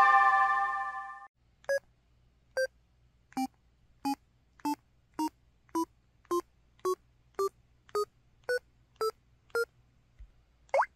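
System tones from an LG KP4400 Cyon phone's Yamaha YMU783B-W 64-voice synth chip. A chime chord rings out and fades over the first second. Then comes a run of fourteen short electronic beeps, each a step higher than the last, and a quick rising sweep near the end.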